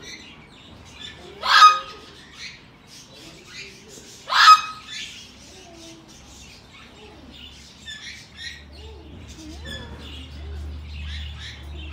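Green-cheeked conure giving two loud, sharp squawks, about a second and a half and four and a half seconds in, with softer chirps and chatter in between.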